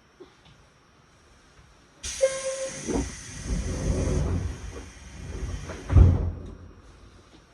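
A train's compressed-air equipment lets out a sudden loud hiss about two seconds in, with a thump a second later and a heavier thump near the end as the hiss dies away, typical of pneumatic doors or brakes working while the train stands at a station.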